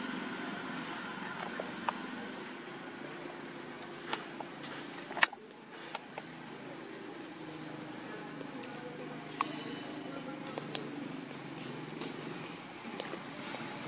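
Steady high-pitched insect drone, with a low background murmur, scattered faint clicks and one sharp click about five seconds in.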